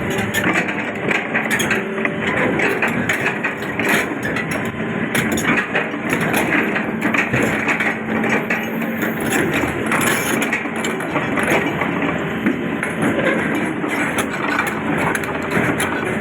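Heavy tracked excavator at work: its engine runs steadily under a dense, continuous run of knocks, cracks and clanks, like steel tracks and metal parts grinding and banging.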